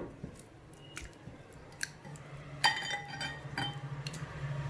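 Chicken breast pieces being worked into a wet marinade in a bowl: light clicks and handling sounds, with a utensil clinking and ringing against the bowl twice, about two and a half seconds in and again a second later.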